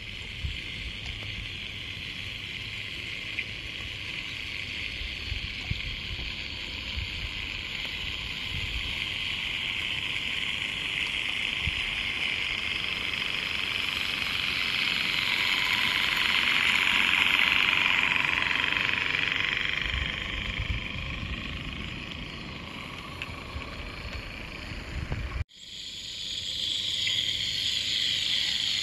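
Regner Class A Climax live-steam model locomotive running past with a log train: a steady steam hiss that grows louder as it approaches, peaks about two-thirds of the way through, then fades. Near the end the sound breaks off abruptly and a similar hiss resumes.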